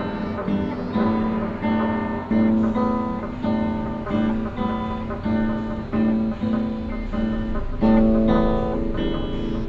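Guitar riff of strummed chords in a steady rhythm, about two or three strokes a second.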